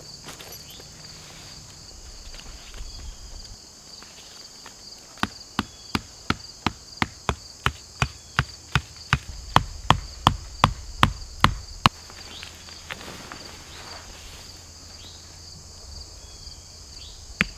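Hatchet striking wood in a quick, even run of about twenty sharp blows, roughly three a second, starting about five seconds in. A fresh run of blows starts near the end. Insects buzz steadily throughout, and there are a few footsteps in dry leaf litter at the start.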